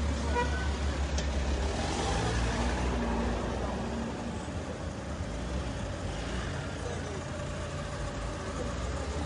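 A car engine running close by over street noise, louder in the first few seconds and then easing off.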